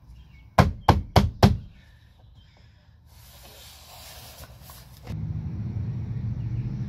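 Four quick knocks on the black plastic floor-edge trim as it is seated into its hooks along the vinyl flooring, followed by a soft rubbing hiss as gloved hands press it down. About five seconds in, a low steady rumble takes over.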